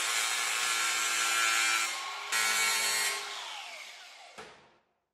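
Angle grinder with a thin cut-off wheel cutting through the tack welds of a knockout panel in a sheet-steel cabinet, with a short break about two seconds in. Near the end the grinder is let off and the wheel winds down, its whine falling in pitch, before a click.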